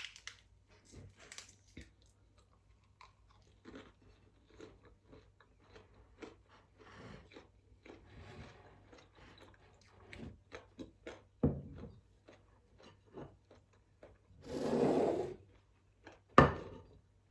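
Close-up eating: chewing and small crunches with light clicks. Near the end a louder rushing sound lasts about a second, followed by a sharp knock.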